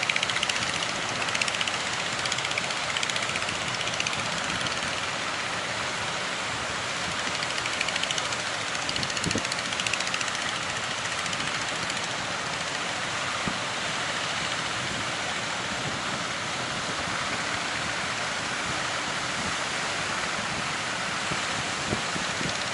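Steady rushing noise of sea waves and strong wind at an estuary mouth.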